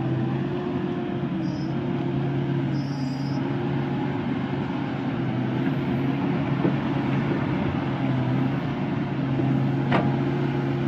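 Komatsu PC200 excavator's diesel engine running steadily, its drone shifting pitch slightly a couple of times, as the machine sits bogged in wet sand. A short sharp click near the end.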